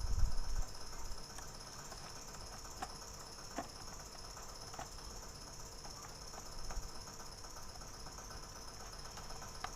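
Faint, sparse clicks of the plastic case of an Acer Veriton N281G mini PC being pried open, with a low bump of handling right at the start. Crickets chirp steadily in the background.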